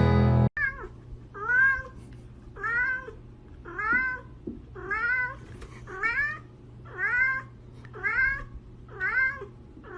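A domestic cat meowing over and over, about one meow a second, each meow rising and then falling in pitch. Music cuts off sharply about half a second in.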